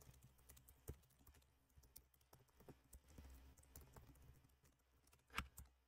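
Faint keystrokes on a computer keyboard, typed in scattered clicks; the most distinct land about a second in and near the end.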